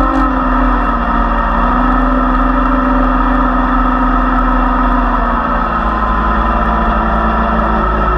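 Off-road vehicle engine running at steady revs under load while climbing soft sand, with a continuous rush of driving noise.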